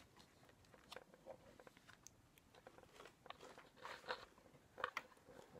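A cat chewing at a cardboard box and its contents: faint, irregular crunching and clicks, busiest in the middle.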